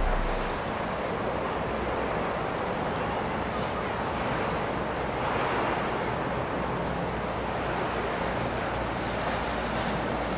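Steady rush of wind and water, an even noise without any tone that holds at one level throughout.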